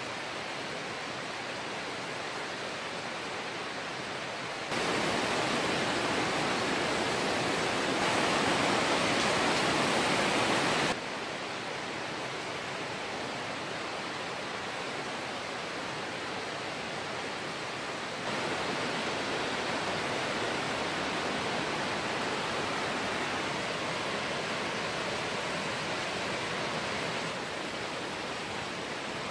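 Steady, even rushing noise, the kind made by running water. It jumps abruptly louder about five seconds in and again near eight seconds, drops back near eleven seconds, and is louder again from about eighteen to twenty-seven seconds.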